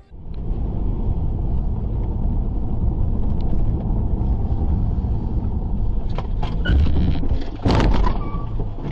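Car interior heard through a dashcam: steady low rumble of engine and road noise while driving, a few sharp knocks about six seconds in, then a loud crash near the end as the car collides with another car.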